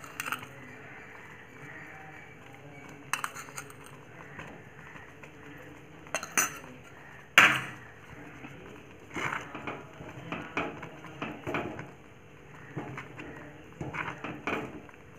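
Wooden spatula knocking and scraping against a stainless steel pot while stirring a thick, simmering semolina-and-coconut halwa, with irregular clinks and one sharp clank about seven seconds in.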